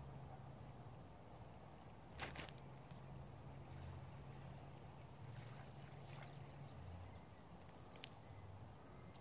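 Quiet pond-side ambience: insects giving a steady high buzz over a low hum, with a brief sharp tick about two seconds in and another near the end.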